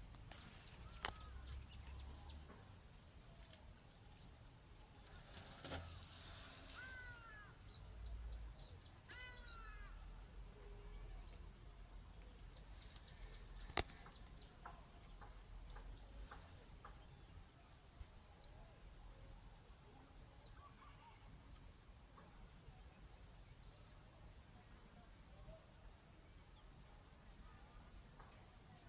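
A steady, high-pitched insect chorus of crickets with a regular pulse, with a few short series of falling bird chirps about six to ten seconds in and a single sharp click near the middle.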